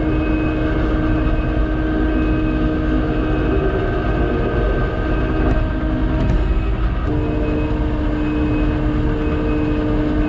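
Kubota SVL90-2 compact track loader's diesel engine running under load as it drives a Harley power rake through topsoil, a steady drone whose pitch steps up slightly about seven seconds in. A faint high beep repeats about once a second throughout.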